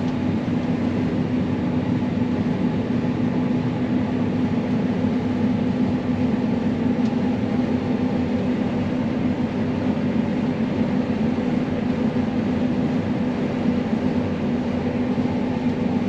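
Combine harvester running steadily as heard from inside its cab: an even engine and machinery drone with a strong low hum that doesn't change.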